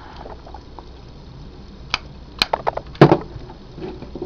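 Plastic clicks and snaps of an Energon Rodimus Transformers toy being transformed by hand, its parts being folded and locked. After a quiet start, a run of sharp clicks begins about two seconds in, with the loudest snap just after three seconds.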